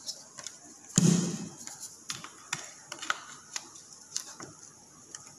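A rubber balloon being worked off the neck of a plastic water bottle by hand: a dull thump about a second in, then a string of small clicks and creaks of rubber and plastic.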